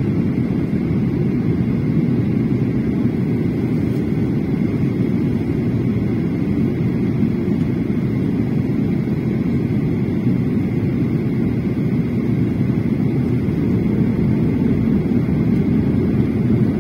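Steady jet engine and airflow noise heard inside an airliner cabin in flight, a low even rush with a faint steady high whine above it.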